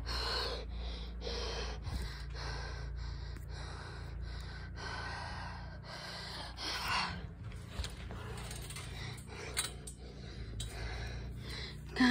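A person panting hard, short breaths in and out about twice a second, catching their breath after minutes of trampoline jumping.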